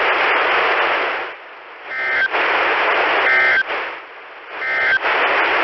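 Weather radio receiver hissing with static, broken by three short bursts of warbling data tones about a second and a half apart: the SAME end-of-message code that closes a broadcast warning.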